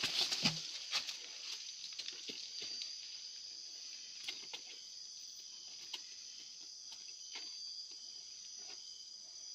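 Steady high-pitched chorus of night insects, with scattered small clicks and taps. A louder rush of noise dies away within the first second.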